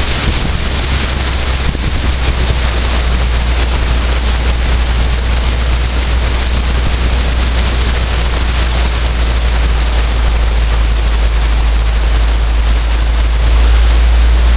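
Car driving through deep floodwater, heard from inside the cabin: a steady low engine and road rumble under a constant hiss of water around the tyres, a little louder near the end.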